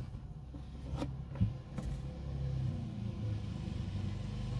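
Low, steady rumble of a vehicle engine that grows louder. There are a couple of short knocks about a second in.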